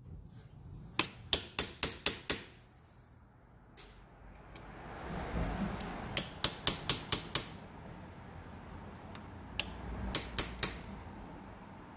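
Hammer tapping a steel punch to stake over the sheet-metal tabs on a blower motor's can: three quick runs of sharp metallic taps, six, then six, then four, with a single tap between the runs.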